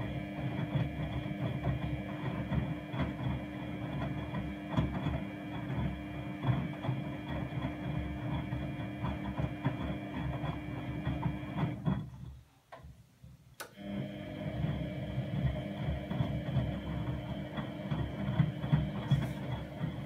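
Miele Novotronic W832 front-loading washing machine in its wash cycle: the drum motor runs with a steady hum and whine while laundry and soapy water tumble and slosh in the drum. About twelve seconds in, the drum stops for a second or two, then starts turning again, the usual stop-and-reverse wash rhythm.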